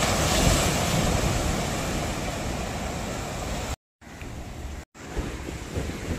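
Sea waves breaking and washing over shoreline rocks, a steady rushing surf mixed with wind buffeting the microphone. Loudest in the first second as a wave crashes; the sound cuts out completely twice for a moment a little past the middle.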